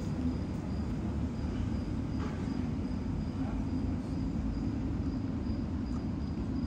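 Steady low outdoor rumble, with a faint thin high-pitched tone pulsing lightly throughout.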